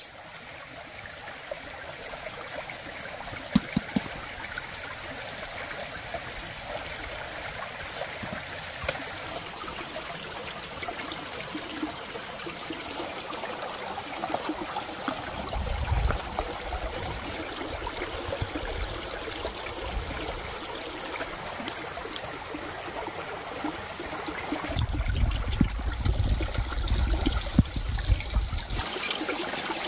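Shallow rocky stream trickling and babbling steadily, with a few sharp clicks in the first ten seconds and two spells of low rumble, around the middle and near the end.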